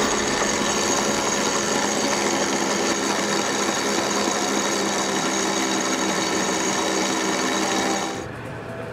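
Electric sail winch running under load to hoist the mainsail: a steady motor and gear hum that stops abruptly about eight seconds in.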